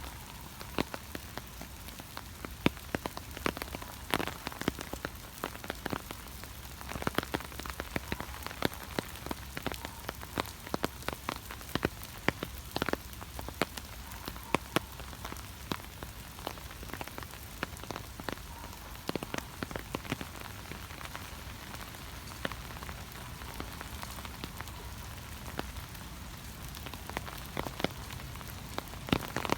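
Steady rain with heavy drops tapping irregularly on a surface, a constant hiss under many sharp, uneven ticks.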